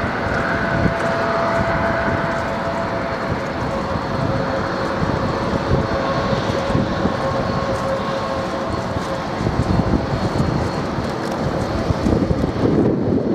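Twin turbofan engines of a British Airways Embraer regional jet running at low taxi power as the aircraft turns and rolls past, a steady whine over a broad rumble. Wind buffets the microphone near the end.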